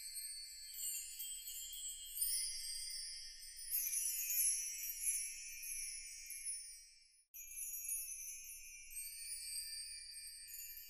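Quiet background music of high, tinkling bell-like chimes. It drops out briefly about seven seconds in, then resumes.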